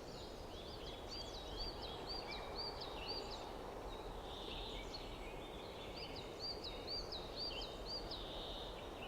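Songbird singing: a bird repeating a short, sharp chirping note about three times a second, in two runs separated by a pause, over a steady faint background rumble.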